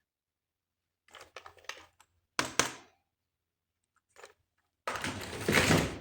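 Hands handling plastic toys and packaging: a run of light clicks, then two sharp knocks, and about a second of loud rustling near the end.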